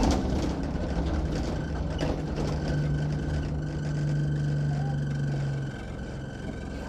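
Cabin sound of an Alexander Dennis Enviro200 Dart single-deck bus under way: the diesel engine drones steadily, quieter near the end, with a loose rattle from behind the seat clicking over it in the first couple of seconds.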